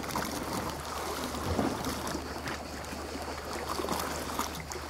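Sea water washing and lapping against the shore: a steady, even rush of water.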